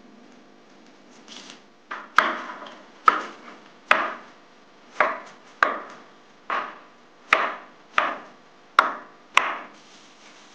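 Knife chopping on a cutting board: about eleven sharp, slow strokes, roughly one every three-quarters of a second, starting about two seconds in.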